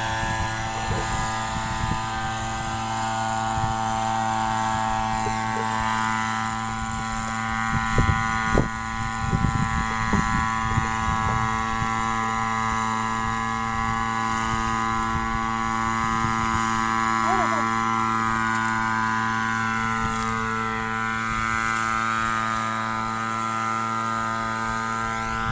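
Small engine of a backpack power sprayer running steadily at high speed, spraying mist over a rice crop. A few brief knocks sound around the middle.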